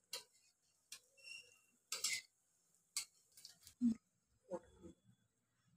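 Wire-mesh skimmer clicking and knocking against a kadhai as fried batata vadas are lifted out of the hot oil: a handful of scattered light clinks, the loudest about two seconds in and just before four seconds.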